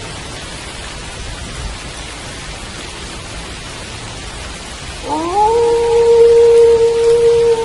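Steady rain falling. About five seconds in, a wolf begins a single howl that rises in pitch and then holds a long, level note.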